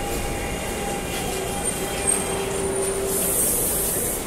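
CNR 3000-series electric multiple-unit train at the platform, its electrical equipment giving a steady whine with a lower tone that grows louder. About three seconds in, a hiss of air lasts about a second.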